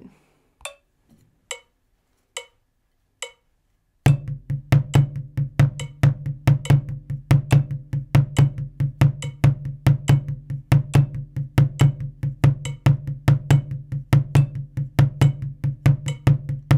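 Four clicks count in. About four seconds in, drumsticks start on a practice pad, playing a fast, even run of alternating-hand sixteenth notes with accented strokes. Underneath runs a steady low tone that pulses with the beat.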